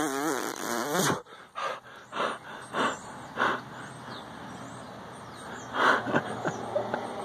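A person blowing mock mouth-to-mouth breaths: first a wavering blown sound about a second long, then a run of short puffs about every half second, with one louder puff near the end.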